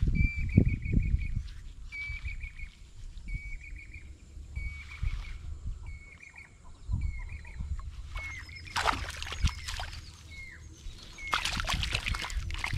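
A bird calls over and over, a short trilled note about once a second, turning to short down-slurred chirps in the second half. Water splashes loudly twice in the second half as the cast net with flapping fish is hauled through the shallows onto the bank.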